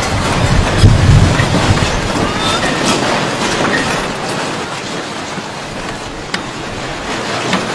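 Earthquake shaking a street: a deep rumble, strongest in the first two seconds and easing after, under continuous rattling and clattering with a few sharper knocks.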